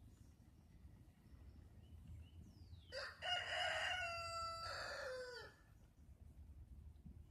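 Rooster crowing once: one long crow of about two and a half seconds, starting about three seconds in and ending on a falling note.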